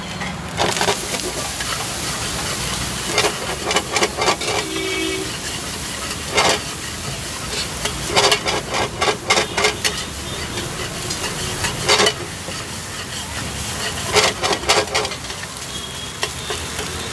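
Egg rice stir-frying in a heavy black pan over a gas flame: a steady sizzle, broken every couple of seconds by short runs of a metal spatula scraping and clacking against the pan.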